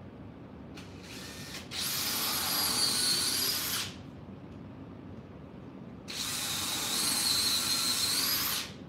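Cordless drill/driver running in two bursts of about two seconds each, a high-pitched motor whine, with a short faint spin just before the first.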